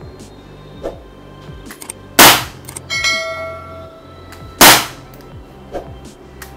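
Gamo PR-725 CO2 air revolver fired twice, double-action, about two and a half seconds apart, each shot a sharp crack. A metallic ringing clang follows the first shot.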